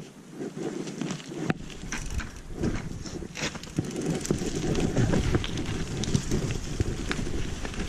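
Enduro mountain bike rolling along a trail, with a rumble from the tyres and rattling clicks from the bike. Wind buffets the camera microphone. The rumble grows louder about a second and a half in as the bike gets going.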